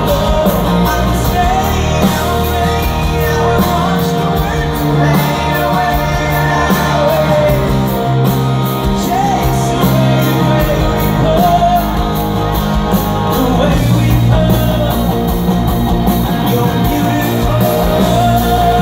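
Live rock band playing: a male lead singer's voice over electric guitar and a steady beat.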